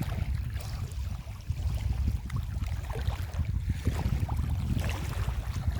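Wind buffeting the microphone, a steady low rumble, with faint scattered clicks over it.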